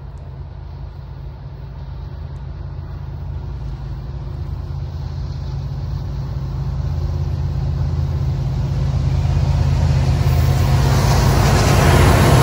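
Approaching Union Pacific freight train led by an EMD SD70ACe and a GE AC45CCTE diesel locomotive. A deep engine rumble grows steadily louder, and wheel and rail noise rises sharply in the last couple of seconds as the locomotives reach the microphone.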